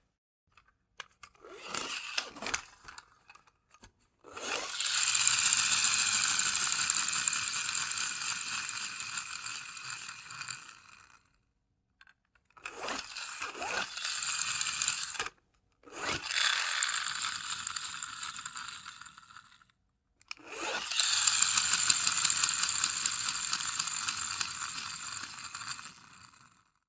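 Remote-control toy car's small electric motor and gears whirring with a high whine. It runs in bursts: a short burst about two seconds in, then four longer runs of a few seconds each. Each run starts suddenly and slowly fades, with silent gaps between them.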